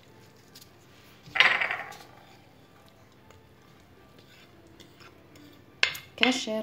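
Chopped vegetables and mortadella scraped from a plate into a glass bowl of batter with a wooden spatula. There is a short clatter about a second and a half in, then a few sharp clicks of utensils against the plate and glass bowl near the end.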